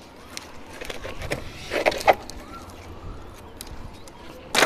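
Handling noise as dry wooden sticks are moved off a bucket of dry grass: a few sharp knocks and rustles, a cluster of them about two seconds in and one more near the end, over a low rumble.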